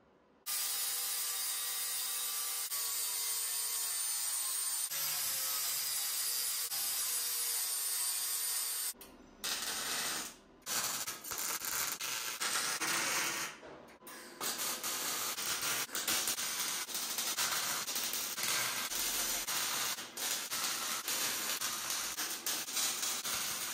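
A steady hiss with faint tones for the first nine seconds or so. Then welding on a steel frame: the arc crackles and sputters in runs, stopping briefly a few times as each joint is welded.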